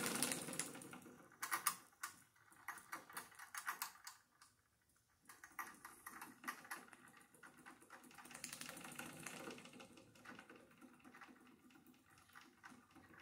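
Wilesco D24 model live steam engine clicking and puffing faintly as it is stopped and restarted by hand at its control lever. The ticking drops to near silence about four seconds in, then picks up again more quietly.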